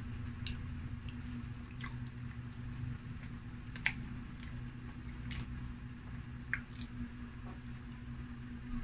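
Close-miked chewing of ham pizza: wet mouth smacks and clicks scattered through, the sharpest about four seconds in, over a steady low hum.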